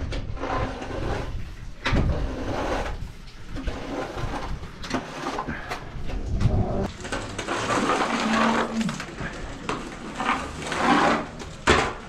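Manure scraper pushed along a wet concrete barn aisle, scraping in irregular strokes with a few knocks of the blade and handle.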